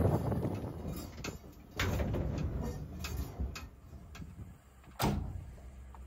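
Scattered metal clanks and knocks from hooking up a gooseneck trailer to a pickup, with a short scrape just under two seconds in and a sharp knock about five seconds in.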